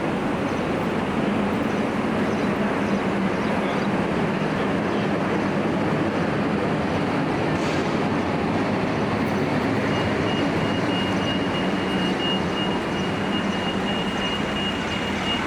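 Steady, continuous vehicle rumble, with a thin high-pitched tone coming in about ten seconds in.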